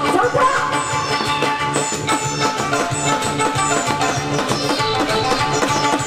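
Korean barrel drum (buk) beaten with two sticks in a quick, steady rhythm, played along with recorded backing music that carries a melody.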